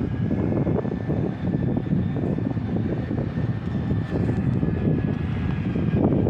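Heavy diesel earthmoving machine, an excavator, running steadily under work with a dense low engine rumble and a faint steady high whine above it; the rumble grows louder near the end.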